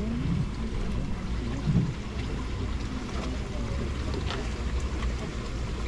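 Steady wind rumble on the microphone over a wash of running water from an inflow pipe pouring into a round turtle tank.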